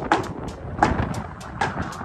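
Sharp metal clanks, three of them about three-quarters of a second apart, over a low rumble of wind on the microphone.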